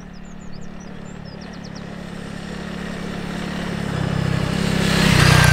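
Honda CRF300L trail bike's single-cylinder four-stroke engine running at steady throttle as the bike approaches, growing steadily louder and loudest near the end. A few bird chirps sound in the first two seconds.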